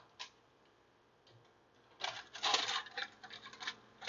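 Electric stove coil burner being fitted onto its foil-lined drip pan: a single click, a pause of about two seconds, then a quick clatter of metal clicks and rattles as the coil is worked into its socket.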